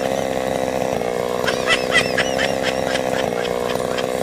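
Chainsaw engine running at a steady high speed, with a cluster of short high chirps about halfway through.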